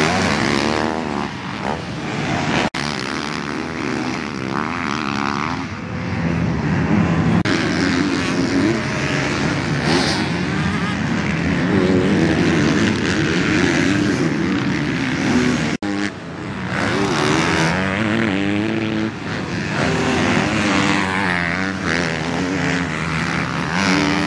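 Motocross dirt bike engines, a four-stroke 450 among them, revving and letting off around a track, the pitch rising and falling with the throttle. The sound breaks off abruptly and changes twice, about three seconds and about sixteen seconds in.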